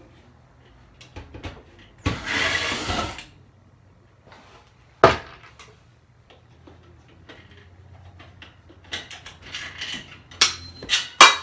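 A cordless drill-driver runs for about a second, backing out a screw from a ceiling air register, followed a couple of seconds later by a single sharp knock. Near the end, the stamped metal register is worked loose from the ceiling by hand, with a run of clicks and scraping.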